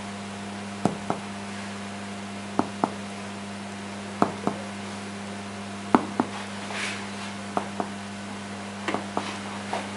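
Chest percussion: a striking finger tapping the middle finger held flat on a man's chest, in pairs of short taps about every one and a half to two seconds as the doctor works down the front of the chest toward the sixth rib. A steady mains hum runs underneath.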